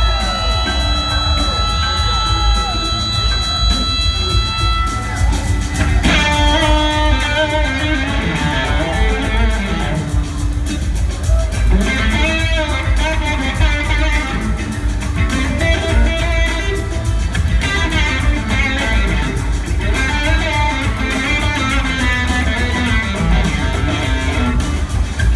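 Live rock band jamming, with an electric guitar carrying the lead over bass and the full band. It holds long sustained notes, then breaks into fast runs of notes about six seconds in.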